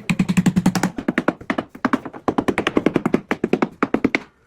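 A rapid run of hard knocks and taps, several a second, thinning out near the end.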